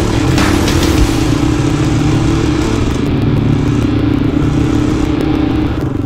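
Dirt bike engine running steadily under way on a rough dirt trail, with a couple of short knocks about a second apart near the start.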